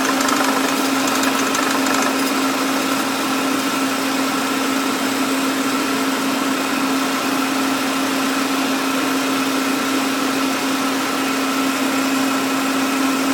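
Saab 9-3 Cabrio engine idling steadily with a clatter, the noise the owner is documenting; a faint fast ticking is heard over it in the first couple of seconds.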